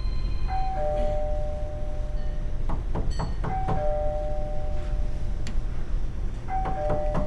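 An electronic two-note doorbell chime, a high note falling to a lower one, rings three times, with bursts of quick knocks on the door between the rings.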